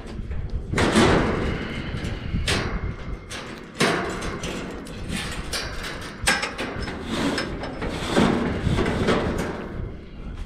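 Trapped feral hogs knocking and crashing against a welded-wire trap and its metal gate, in irregular rattling thuds with several heavier bangs.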